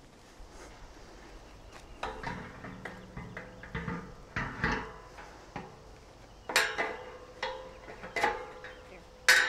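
Irregular metallic clanks and knocks, some with a short ring, beginning about two seconds in, with the loudest clanks near the end.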